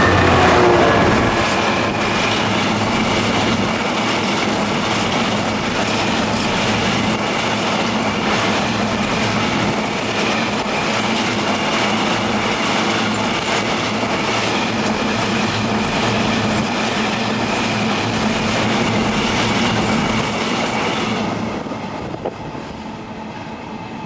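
A Class 66 diesel locomotive's engine note falls in pitch as it passes, then a long train of empty coal hopper wagons rolls by, wheels clattering over rail joints with a steady high ring. The noise drops away about 21 seconds in as the end of the train passes.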